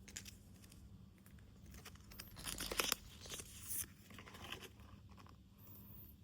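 Packaging rustling and tearing as it is handled, in a few short bursts, the loudest between about two and three seconds in.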